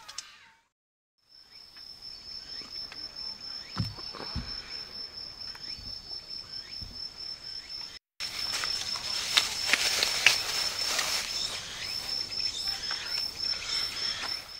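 High-pitched insect trill, steady and finely pulsed, broken by a short silence about eight seconds in, with scattered light clicks and knocks.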